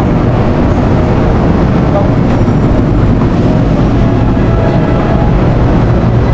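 Loud, steady low rumble of city street traffic.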